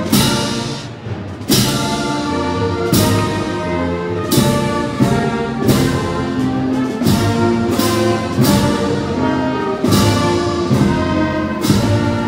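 Brass band playing a slow processional march: held brass chords over heavy drum strikes that fall about every second and a half.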